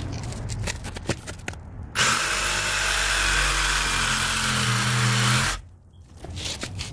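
Cordless reciprocating saw cutting through a cast-iron kitchen drain stack: a few light knocks as the blade is set against the pipe, then about three and a half seconds of steady cutting with the motor's pitch shifting under load, stopping suddenly.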